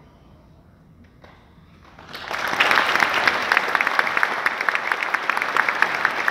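A brief hush as the music ends, then audience applause breaks out about two seconds in and carries on as dense, steady clapping.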